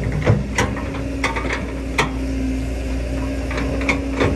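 Kobelco hydraulic excavator's diesel engine running steadily as its bucket digs into sandy soil, with irregular sharp metallic clanks and knocks from the bucket and arm.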